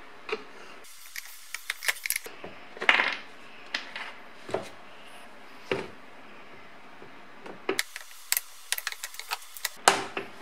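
Metal screws and clips clinking and the plastic housing of a BMW E30 heater box clicking and knocking as it is taken apart with a screwdriver. The sharp clicks and light clatters come in clusters, about a second in and again near the end.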